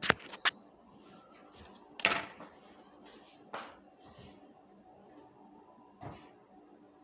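Kitchen handling noises: a few sharp knocks and clicks of things being picked up and set down, two close together at the start, the loudest about two seconds in, and quieter ones later.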